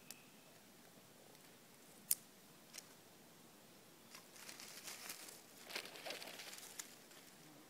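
Thin twigs snapping by hand: a few single sharp snaps, the loudest about two seconds in. From about four seconds in comes a crackling rustle of many small snaps as twigs are stripped off a branch and gathered for kindling.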